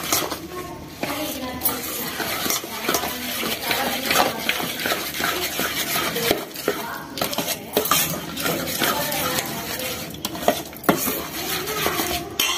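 Steel spoon stirring and scraping a steel pot, mixing semolina and maida flour into a thick batter, with frequent clinks of the spoon against the pot.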